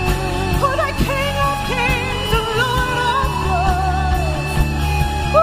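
Live worship band playing with drums and bass under a lead singer, whose held notes waver and glide without clear words.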